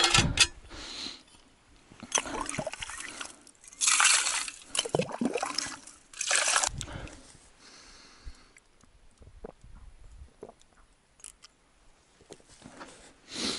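Enamel mug dipped into a hole in the ice, scooping and sloshing water in four splashy bursts over the first seven seconds, then fainter trickles and drips.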